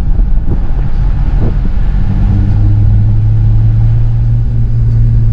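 Jeep driving a dirt mountain trail: a loud, steady low engine drone over a heavy rumble.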